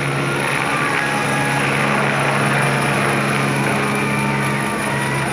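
Helicopter flying low overhead, its rotor and engine giving a steady drone with a low hum.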